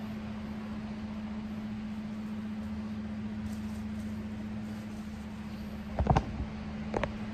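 Electric fan running steadily, a constant whirring noise with a low hum. Two brief, louder sounds break in near the end, the first about six seconds in and the second a second later.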